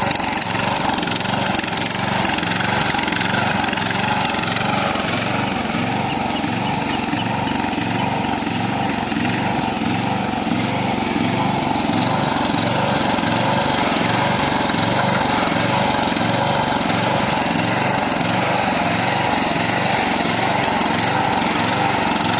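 Maxgreen MPR030 15 HP petrol ride-on lawn mower engine running steadily, with a regular low throb.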